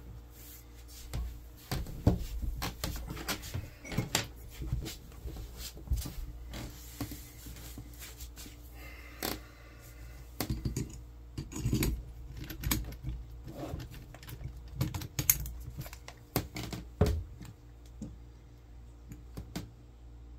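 Tools and parts being handled on a table: scattered irregular clicks, taps and light clatter, over a low steady hum.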